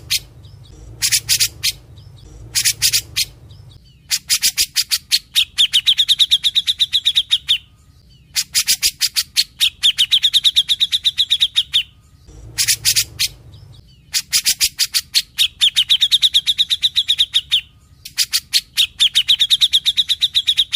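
Cucak jenggot (grey-cheeked bulbul) in full song: short clusters of sharp, rapid notes, then long runs of fast notes that end in a wavering high trill. The long phrases repeat about every four seconds, with a short cluster between two of them.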